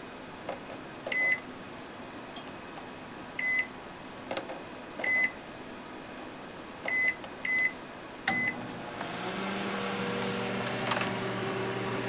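Microwave oven keypad beeping as its buttons are pressed: six short, high beeps with faint key clicks between them. About eight seconds in the oven starts and runs with a steady low hum.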